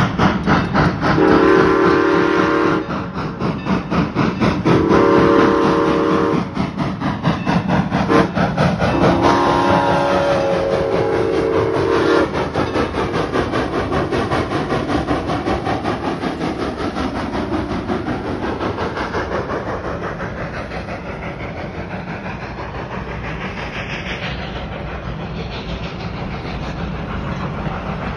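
N&W 475, a 4-8-0 steam locomotive, blows its whistle for the grade crossing: two long blasts, a short toot, then a long blast. Rapid, even ringing from the crossing bell runs throughout. The engine and its passenger coaches then roll past with rail clatter that slowly fades.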